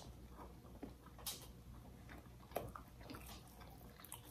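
Quiet eating sounds: faint chewing and a few small, soft clicks as fingers pick at the flesh of a baked fish.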